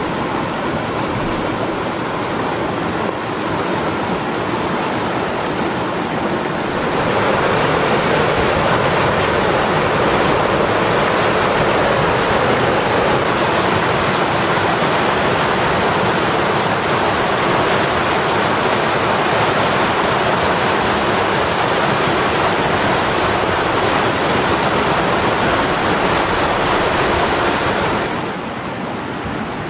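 Flash-flood debris flow: muddy floodwater rushing and churning down a desert wash and pouring over rock ledges, a steady loud rushing of water. It gets louder about a quarter of the way in and drops back shortly before the end.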